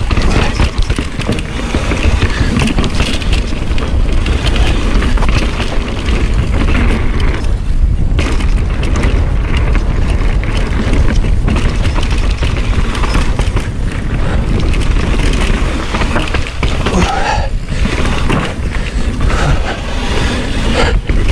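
Mountain bike descending a fast dirt trail at speed: a heavy wind rumble on the microphone over a constant rush of tyre and trail noise, broken by short knocks and rattles from the bike.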